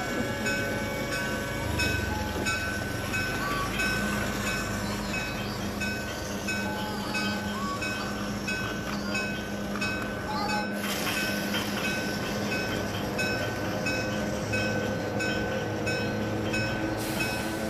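Electronic toy-train sounds: a repeating tune of short beeping notes over a steady running hum.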